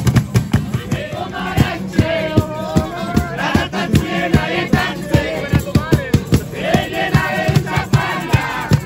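Live street band: several men singing together to strummed acoustic guitars, with a fast steady percussive beat.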